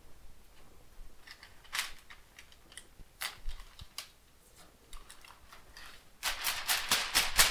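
Paper being pulled off and torn away: a few scattered crinkles, then from about six seconds in a dense run of loud crackling and ripping.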